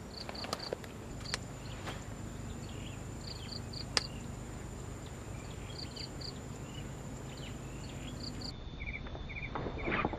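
Insects chirping: a steady high drone with groups of short, quick chirps repeating, and a few sharp clicks in the first half.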